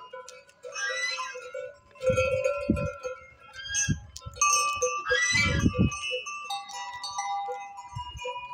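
A herd of Anatolian black goats bleating a few times, loudest about halfway through, over background music with sustained notes.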